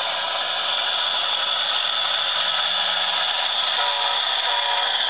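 HO-scale Intermountain AC44 model diesel locomotive running under DCC sound: the decoder's diesel engine sound plays from its small onboard speaker as a steady hiss with a faint low hum, as the locomotive pulls away.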